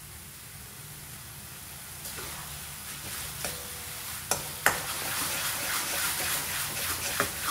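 Chicken frying in oil in a pan, the sizzle growing louder from about two seconds in, as it is stirred, with a few sharp clicks of the utensil against the pan.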